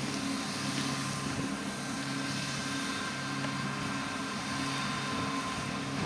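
John Deere 7290R tractor running steadily under load as it drives a KRM topper over grass stubble. Its low engine hum pulses in an even rhythm, with a faint steady whine above it.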